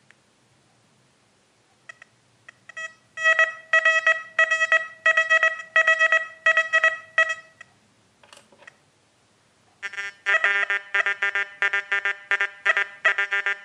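XP Deus metal detector sounding target tones as objects are swept over its coil: a run of quick high-pitched beeps, about four a second, for a target reading 70. After a pause comes a lower-pitched string of beeps for a target reading 05.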